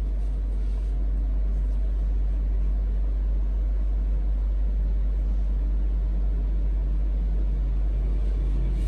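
Steady low rumble, like a machine running in the room, with a faint hiss near the start and again near the end.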